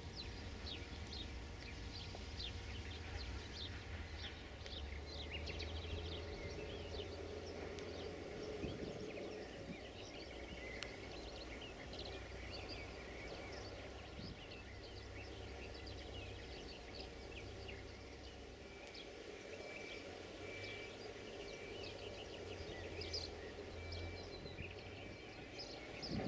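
Outdoor ambience of small birds chirping over a low, steady rumble; in the last few seconds a single high note repeats at even spacing.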